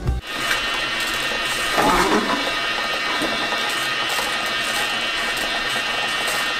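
Kuvings commercial slow juicer running: a steady motor whine under the grinding and crunching of the auger pressing apples, with a louder crunch about two seconds in.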